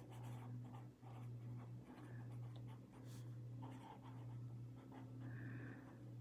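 Pen writing on lined notebook paper: faint scratching strokes over a low steady hum.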